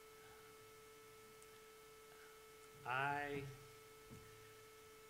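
Faint, steady electrical hum, a single unbroken tone. About three seconds in, a man briefly makes a short wordless vocal sound, mid-pause in his answer.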